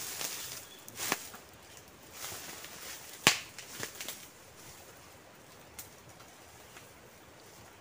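Footsteps crunching through dry bamboo leaf litter, with a few sharp snaps of twigs, the loudest about three seconds in.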